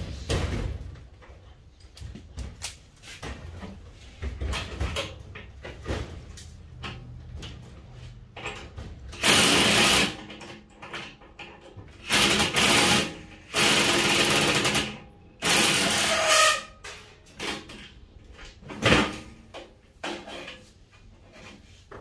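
Cordless drill/driver running in four or five short runs of a second or so each, backing out the bolts that hold a furnace blower motor in its housing. Scattered clanks and knocks of metal parts being handled come before the runs.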